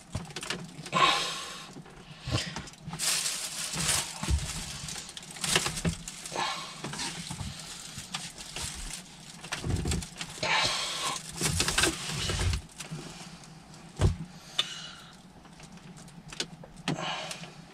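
Plastic dashboard centre-stack panel of a Volvo V70 being worked into place by hand: irregular scrapes, rattles and taps as it is lined up and pushed in, with one sharp knock late on.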